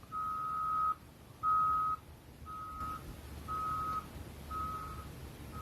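Vehicle reversing alarm beeping: one steady pitch, about once a second, six beeps that grow fainter after the first two.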